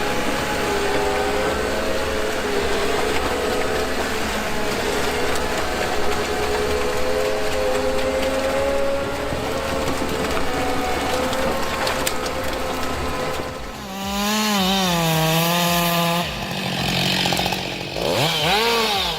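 Chainsaw running under load, its pitch wavering as it cuts, then revved up and down in two short bursts over the last few seconds.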